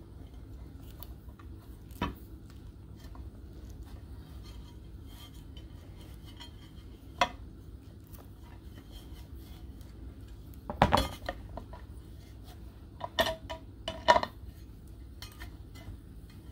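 Scattered metal clinks and taps from a Phillips screwdriver turning a hex-socket screw into the metal base of a floor stand. A few single clicks, with a quick cluster about eleven seconds in and two more a few seconds later.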